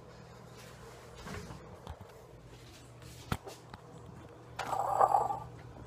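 Light handling knocks in a quiet kitchen over a steady low hum, with a sharp click about three seconds in and a short burst of rustling noise near the end.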